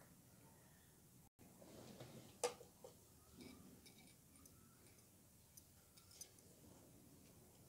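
Near silence, with a few faint taps and soft rubbing from hands folding and rolling a strip of dough on a rolling board. There is one sharper tap about two and a half seconds in.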